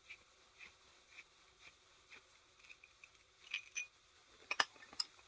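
Light metal clicks of a Metco supercharger pulley tool's block and bolts being fitted onto the pulley by hand. A faint tick comes about every half second, then a few sharper clicks near the end.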